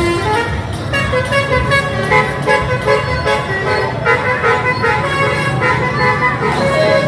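Basuri 'telolet' musical air horn on a garbage truck playing a melody of stepped notes, over the truck's engine running.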